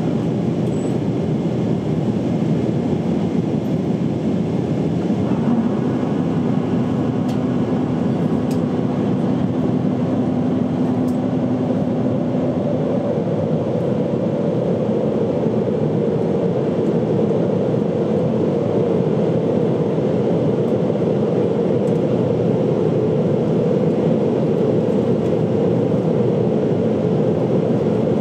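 Airliner cabin noise in flight: a steady rush of engine and airflow noise. A steady low hum enters about five seconds in and gives way to a higher hum around fourteen seconds in.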